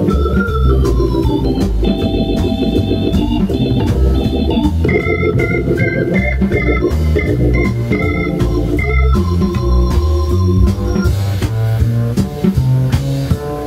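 Hammond organ playing a fast bebop improvisation of quick single-note runs over a bass line and drums. The organ line drops out near the end, leaving the bass and drums.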